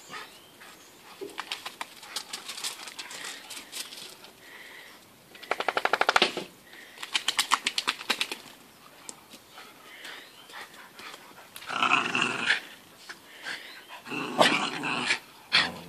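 Irish red setter puppy and a second dog at play, with short growls and yaps in a few bursts. Two runs of rapid, even clicking, about a dozen a second, are the loudest sounds, about six and eight seconds in.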